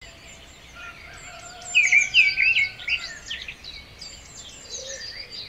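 Birds chirping: quick, high chirps in a busy run about two seconds in, with a few scattered chirps after it, over a faint steady hiss.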